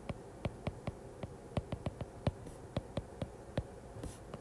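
Stylus tip tapping and clicking on a tablet's glass screen while handwriting, a quick irregular run of light clicks, a few a second.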